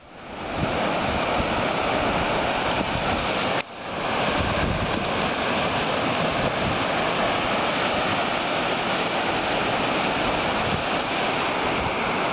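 Surf breaking and washing up a sandy beach, with wind on the microphone. The sound cuts out abruptly about three and a half seconds in and comes back within half a second.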